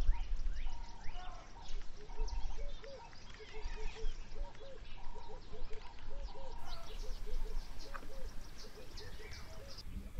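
Several wild birds calling in the bush: a run of short, low, hooked notes repeated every half second or so, with quick high chirps over them, above a steady low rumble.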